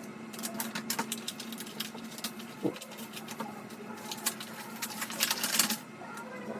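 Paper and plastic crackling and rustling in quick irregular clicks as a courier packet of passports is opened by hand, with a denser burst of crackling near the end.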